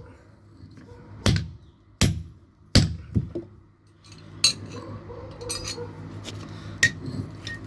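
Blacksmith's hammer striking metal on an anvil: three sharp, ringing blows about three quarters of a second apart, then a lighter tap. After that a steady low hum with scattered clicks and knocks.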